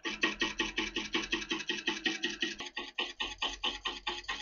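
Slitting saw on an arbor in a Myford lathe cutting a slot in a screw head, giving an even, rhythmic rasp about seven times a second. The saw is running out of true, so it bites once each turn.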